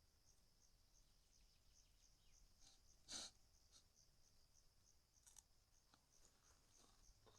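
Faint, steady, high-pitched chirping of crickets at about three to four chirps a second, with one brief louder rustle a little over three seconds in.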